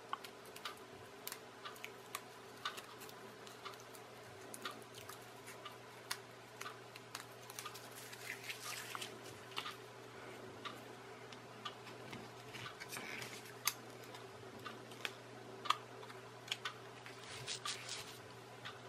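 Irregular small clicks and taps of tiny clear plastic kit parts and metal pins being handled and fitted together on a tabletop, with a few brief rustles, over a faint steady hum.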